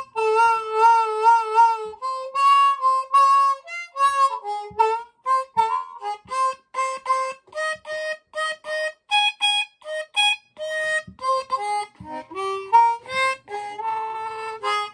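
Easttop ten-hole diatonic harmonica in A-flat, cupped in both hands and played as blues harp. It opens with a warbling held note for about two seconds, then runs into a string of short, separated notes and chords.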